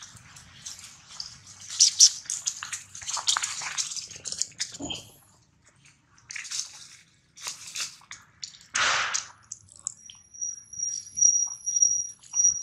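A baby macaque drinking from a plastic water bottle held to its mouth: wet slurping and dripping as water spills, with dry leaves crackling underfoot in the first few seconds. A thin, steady, high whine comes in near the end.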